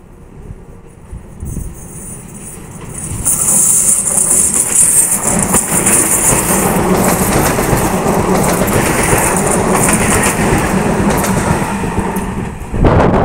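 Double-deck electric regional train approaching and passing close by. A rumble builds over the first few seconds, with a high hiss as the train draws near, then a loud steady rush as the cars go past, and a sudden louder burst near the end.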